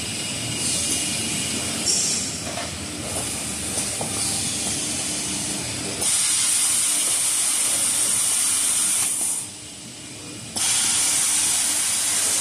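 Maxi roll tissue paper band saw cutting machine running with a steady mechanical drone. About halfway through a loud hiss sets in, stops for about a second, then comes back.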